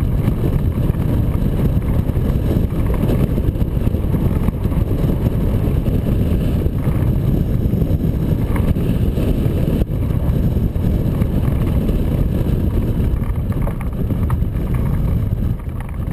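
Airflow buffeting the microphone of a camera mounted on a hang glider in flight: a loud, steady low rumble of wind noise.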